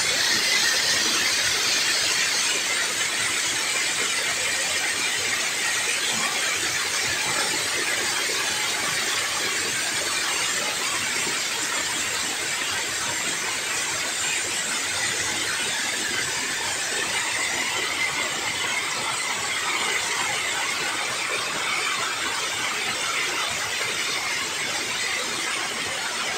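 Water pouring down a sloped concrete dam spillway and crashing into the river below, a steady, even rush.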